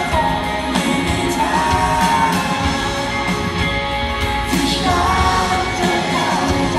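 Live band performing a pop-rock song, a lead vocalist singing a held melody over the band with steady drum hits.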